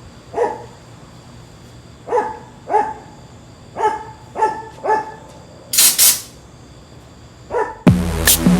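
A dog barking in short single barks, about seven spread out, with two louder hissing bursts about six seconds in. Electronic music with a beat starts near the end.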